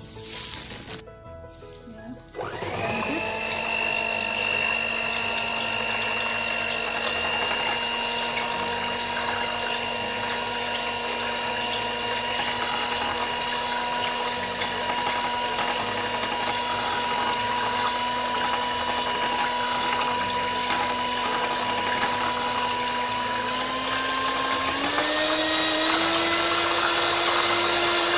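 Electric hand mixer starting about two seconds in and running with a steady whine as it blends soap batter toward trace; near the end its pitch steps up as the speed is raised. Before it starts, a spoon clinks against a bowl.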